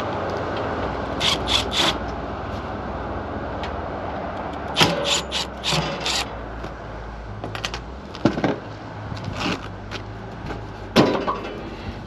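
Cordless impact driver backing screws out of a mini-split outdoor unit's sheet-metal cover panel in several short bursts, with the clicks and clatter of screws and panel, and a sharp knock near the end.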